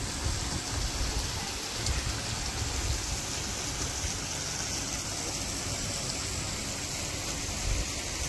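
Steady rushing of running water with a low rumble of wind on the microphone.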